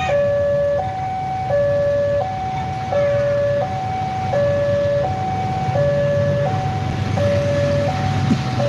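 Railway level-crossing warning alarm sounding a steady hi-lo two-tone signal, switching between the higher and lower tone about every 0.7 seconds, over a low rumble.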